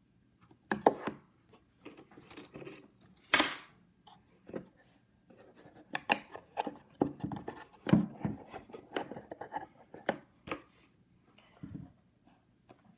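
Irregular clicks, clacks and knocks of a Melissa & Doug wooden doorbell house toy being handled: a toy key working a door lock and small wooden parts being moved. A few sharper knocks stand out, about a second, three and a half seconds and eight seconds in.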